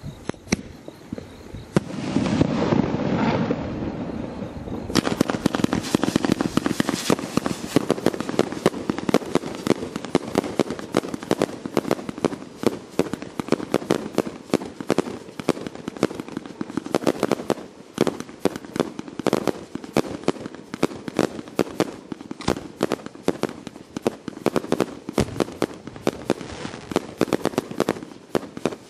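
Dominator 100-shot 1.3G consumer fireworks cake firing in rapid succession, its shells rising on silver serpent tails and breaking into coloured peonies. A dense rush of noise comes about two seconds in, then a steady, rapid string of sharp bangs, several a second.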